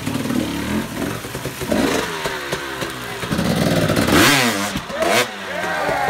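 Dirt bike engine revving up and down in quick blips as it works its way up a wet rock ledge, the pitch rising and falling again and again. The sharpest revs come about four and five seconds in.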